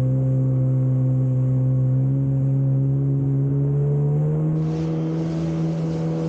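Jet ski engine running at speed, its note rising slowly and steadily. About four and a half seconds in, a rushing hiss of water and spray joins it.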